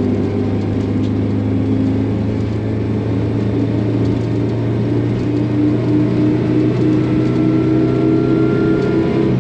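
Supercharged Toyota 3RZ four-cylinder engine pulling under light load in gear, its pitch climbing slowly as the truck gains speed.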